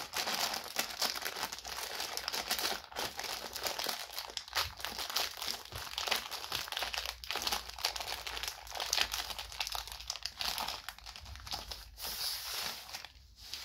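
Clear plastic wrapping crinkling and crackling as hands pull it off a rolled-up speedcubing mat, in dense irregular crackles that ease off just before the end.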